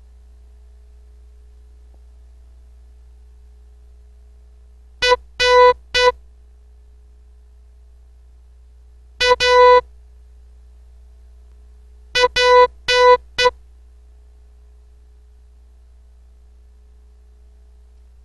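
Morse code practice tone, a steady beep of about 500 Hz, keyed in slow, widely spaced characters: dot-dash-dot, then dot-dash, then dot-dash-dash-dot, spelling R, A, P. The characters come about four seconds apart.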